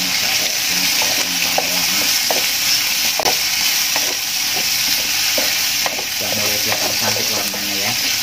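Chillies and chicken sizzling in hot oil in a wok, with a steady hiss, while a spatula stirs them, scraping and knocking against the pan at irregular moments.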